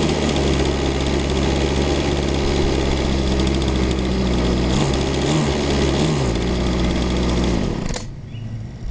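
Small string trimmer engine on a homemade RC boat turning over with a cordless drill pressed to its starter, a loud steady mechanical drone with a few brief pitch wobbles midway. It cuts off suddenly near the end as the drill comes away.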